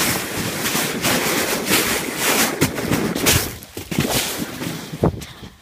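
Sled sliding fast down a snowy slope: a loud rushing hiss of snow under the sled, with scattered knocks as it bumps along, dying away about four seconds in as it slows; a single thump near the end.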